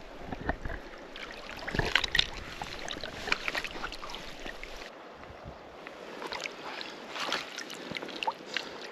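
Water splashing and sloshing close by as a hooked brown trout is played and landed, with scattered short clicks and knocks.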